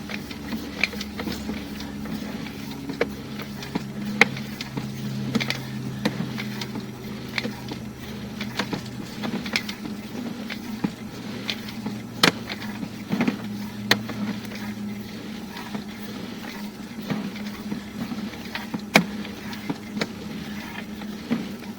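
Irregular clicks and knocks of a sewer inspection camera's push cable and head being fed through the pipe, over a steady low machine hum; a deeper drone under the hum drops out about two-thirds of the way through.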